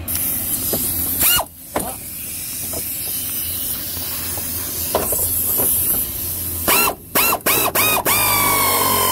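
Power tool backing out an 8 mm bolt on the cooling fan assembly, over a steady hiss. Its motor whirs up and down in short trigger pulls (once a second in, again about five seconds in, then four quick ones near the end) before running steadily.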